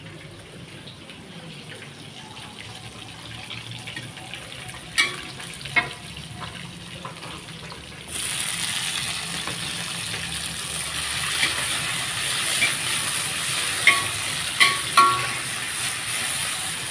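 Chopped aromatics and tomato sizzling in hot oil in a steel wok, starting abruptly about halfway through and running on loudly. Near the end a metal spatula clinks against the wok a few times. Before the sizzle there is a quieter hiss with a couple of knocks.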